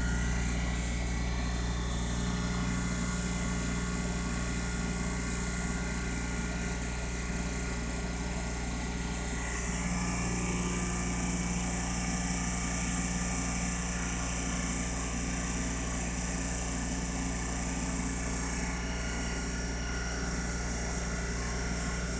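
Blueline Orion 100 rotary vane vacuum pump running steadily, a constant low motor hum under a mechanical drone, while it pumps down a flask of oil for a vapor pressure test. A high hiss grows louder about ten seconds in.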